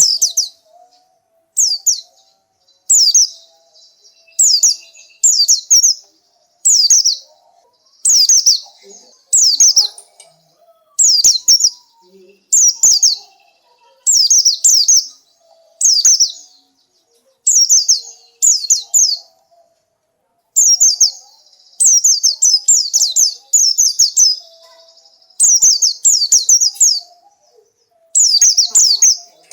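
White-eye (pleci) singing: short phrases of high, rapid downward-sweeping chirps, repeated about every second or so, some phrases running longer than others.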